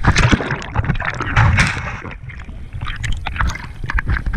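Sea water splashing close to the microphone as a child churns the water with her hands. The splashing is heavy for about the first two seconds, then turns into lighter, scattered splashes.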